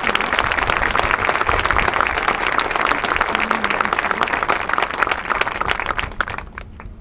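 A stadium crowd applauding, many hands clapping at once, fading out about six and a half seconds in.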